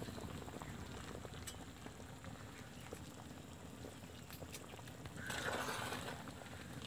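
Chicken curry boiling hard in a large metal pot, a steady bubbling, with a louder surge of hissing for about a second some five seconds in.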